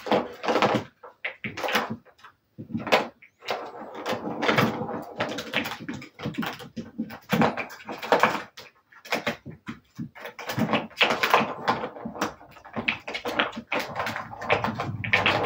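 Savannah kittens batting the balls around a plastic circular track toy: quick irregular clattering, clicking and rattling of plastic.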